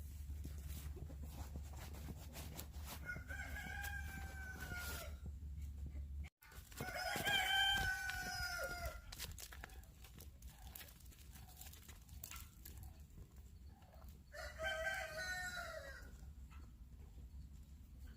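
Rooster crowing three times, each crow a long call of a second and a half or more; the middle crow is the loudest.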